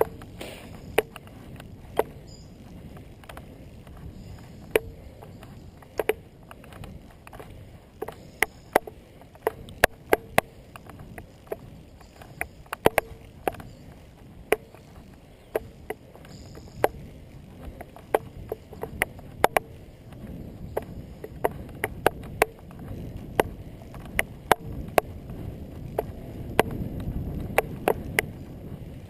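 Bicycle rolling over bumpy asphalt, its frame and handlebar-mounted camera giving sharp, irregular knocks and rattles at each jolt, over a low rumble of tyres and wind that grows louder near the end.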